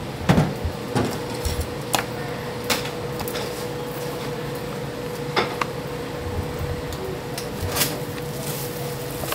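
Bamboo steamer lids and utensils knocking and clattering, a handful of sharp knocks spread out, over a steady hiss from the steaming pot and a faint steady hum.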